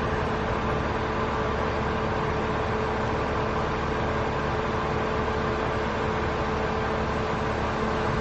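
A steady mechanical hum with an even hiss and a constant low tone.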